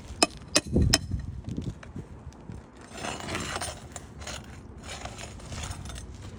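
Crowbar working under roof shingles to loosen them: three sharp metal clinks in the first second, then several scraping strokes.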